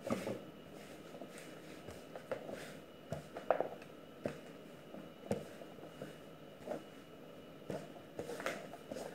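Pizza dough being kneaded by hand on a floured, plastic-covered worktop: soft, irregular thuds and slaps as the dough is pushed and folded, roughly one every half second to a second.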